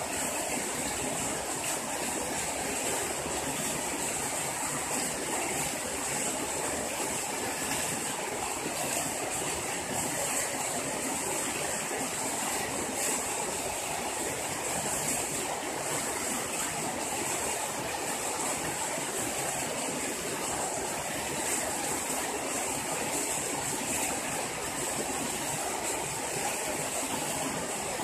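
Steady rush of running water, with an even high hiss over it.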